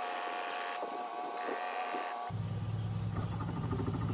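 An even hiss with a steady high tone, which changes abruptly a little over two seconds in to the steady low rumble of a vehicle driving, heard from inside the cabin.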